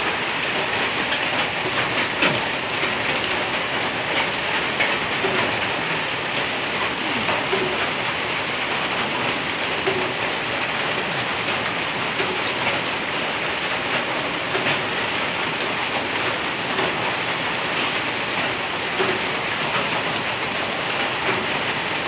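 Rain falling steadily on a corrugated zinc roof, a noisy, dense, even hiss.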